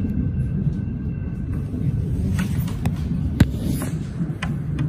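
Steady low rumble inside a Melbourne electric suburban train carriage, with a few sharp clicks, the loudest about three and a half seconds in.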